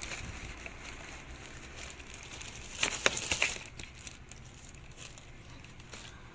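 Plastic courier pouch being torn open and handled, with a burst of loud crinkling and crackling about three seconds in.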